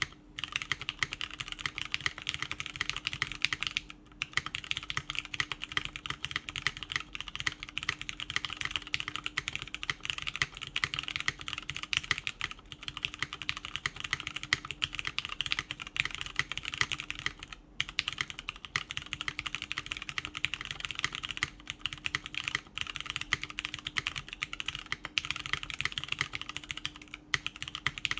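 Continuous fast typing on a mechanical keyboard with lubed Cherry MX Brown tactile switches, aluminium plate and Cherry G81 keycaps, giving a dense run of soft clacks with a couple of brief pauses.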